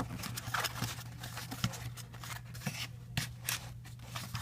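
Cardboard being folded and handled: scattered light scrapes, rustles and taps as the tabs of a cardboard VR viewer are pushed into their slots, over a steady low hum.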